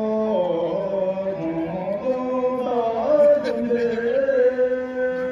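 A man singing a slow song into a microphone, amplified, holding long notes that slide and waver in pitch.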